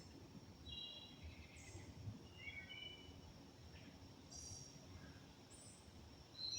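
Faint outdoor ambience: scattered short bird chirps, a few brief calls spread through, over a thin steady high-pitched tone. The loudest chirp comes near the end.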